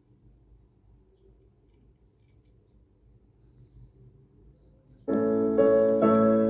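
Near silence with faint room tone, then piano music starts abruptly about five seconds in and plays loud sustained chords.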